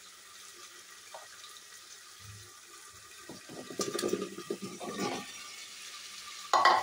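Thick tomato-onion masala simmering in a pressure cooker with a faint hiss, then pieces of peeled taro root (arbi) tipped off a metal plate into it, landing with wet plops and splashes for about two seconds. A short loud knock near the end.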